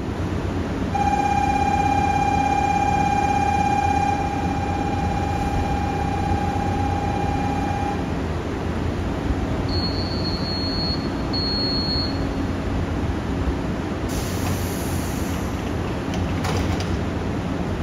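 JR Shikoku 7200 series and 7000 series electric train standing at the platform, its equipment humming steadily. About a second in, a steady electronic tone with overtones starts and sounds for about seven seconds. Two short high beeps follow near the middle, and a brief hiss comes a few seconds before the end.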